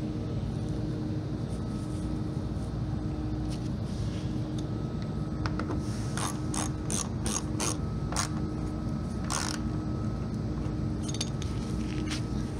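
A socket ratchet wrench with an extension clicking through a run of short strokes, about two or three clicks a second, as it drives a screw under the front bumper and fender liner. The clicking comes in the middle of the stretch, and a few more clicks follow near the end.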